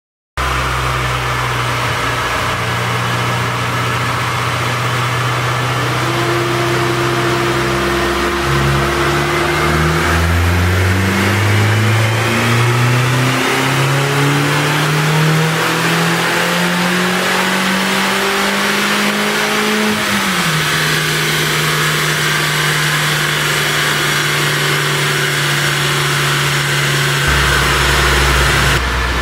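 A tuned 2014 Mini Cooper S's turbocharged four-cylinder engine on a dyno run: it runs steadily at first, then climbs steadily in pitch for about eleven seconds as it pulls up through the revs, and drops back sharply about twenty seconds in to settle at a steady lower speed.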